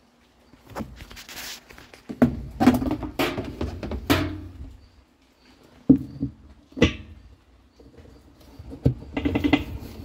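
A hard plastic washing-machine agitator being handled and fitted into a steel drum: rustling and scraping, then several separate sharp plastic knocks as it is set down and pressed onto its splined shaft.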